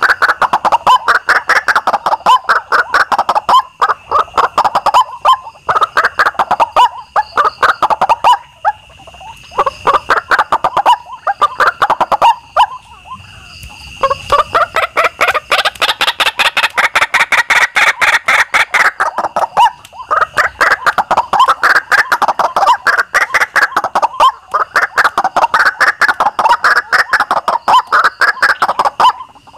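White-breasted waterhen calls, the ruak-ruak lure call: loud, rapid runs of harsh repeated notes in long bouts, broken by short pauses about 4, 9, 13 and 20 seconds in.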